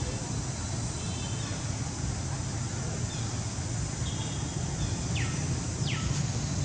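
Steady outdoor background of low rumble and hiss, with faint short bird chirps every second or so and two quick falling whistles near the end.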